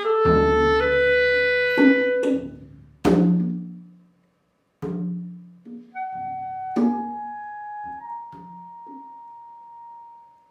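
Clarinet playing sustained notes that step from pitch to pitch, punctuated by drum and hand-drum strikes, one of them a deep drum hit that rings for a couple of seconds. After a short pause the clarinet returns with a few more strikes and ends on a long held note that fades away.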